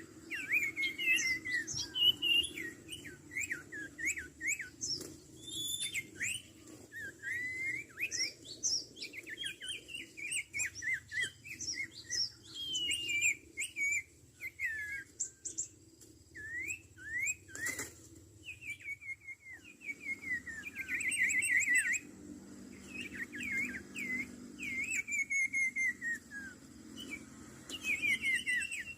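Sirtu (cipoh) birds calling busily: a continuous string of quick, chattering chirps and whistles, many of the notes sliding downward.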